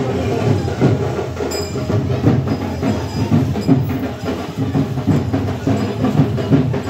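Music with drums and percussion beating steadily.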